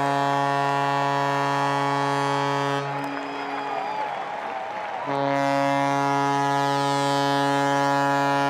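Ballpark home-run horn sounding two long, low, steady blasts, with the crowd cheering and clapping in the two-second gap between them.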